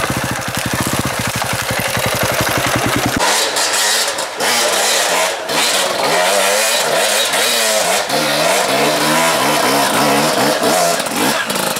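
Dirt bike engine running close by with a steady, rapid beat. After a cut about three seconds in, an enduro motorcycle revs up and down again and again as it climbs a steep slope.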